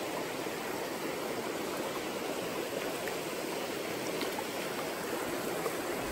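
Shallow, rocky mountain creek flowing: a steady, even sound of running water.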